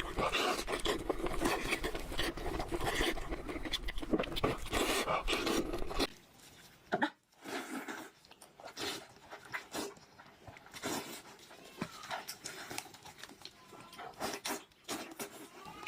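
Close-up eating sounds: wet chewing and lip-smacking, dense for about the first six seconds, then dropping to softer, scattered mouth clicks.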